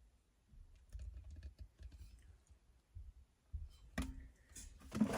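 Faint scattered clicks and rustles of hands handling the hoodie fabric and zipper while pinning the zipper in place, with a louder clatter about four seconds in.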